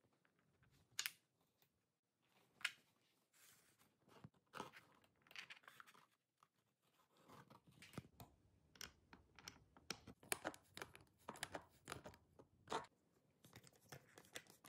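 Faint clicks and scrapes of small metal cam bolts being handled and screwed into pre-drilled wooden rails, scattered at first, then a denser run of scratchy clicks in the second half.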